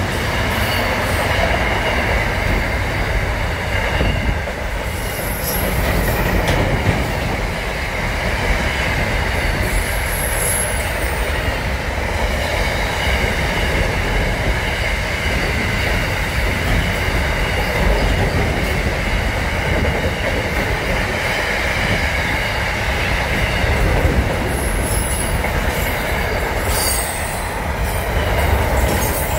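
Container freight train's wagons rolling past at speed: a continuous noise of steel wheels on rail with a steady high-pitched wheel squeal, and a few short, higher screeches along the way.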